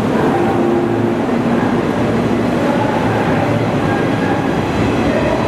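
JR 115-series electric multiple unit pulling away, its motors and wheels running loudly and steadily on the rails, with faint drifting tones in the noise.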